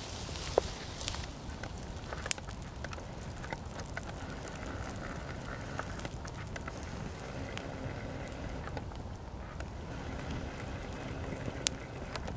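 Open fire of burning cloth, with scattered sharp crackles and pops over a steady low rumble of flame.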